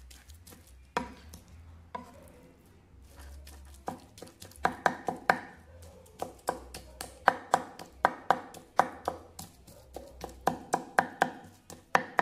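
Kitchen knife chopping cooked pork leg on a wooden cutting board: a few scattered knocks at first, then from about four seconds in, quick runs of chops.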